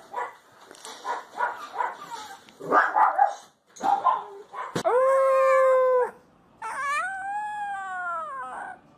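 A young puppy's short grunts and squeaks, then a husky puppy howls twice: first a steady howl of about a second, then a longer howl that rises and falls in pitch.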